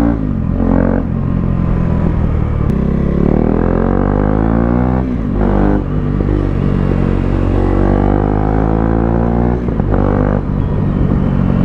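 KTM RC 390 single-cylinder engine through an aftermarket Akrapovic exhaust, accelerating hard: the pitch climbs steadily, breaks briefly at each upshift, then climbs again, with three shifts in all.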